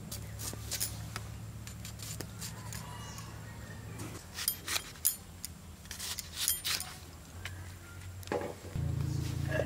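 Onion being cut on a boti, the curved blade standing on its wooden base: a scatter of crisp cuts and taps over a low steady hum that grows louder near the end.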